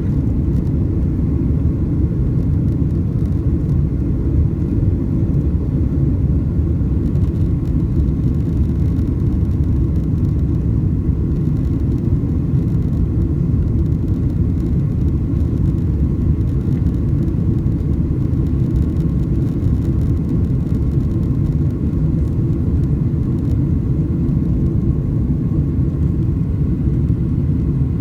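Boeing 767-300ER airliner under jet power: a loud, steady low rumble that holds constant throughout.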